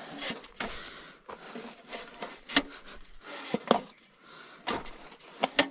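Irregular sharp clicks and knocks over rustling: a hand tobacco planter being worked into the soil as seedlings are handled and set.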